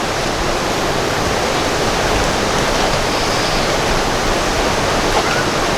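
Steady rushing of water, an even unbroken noise.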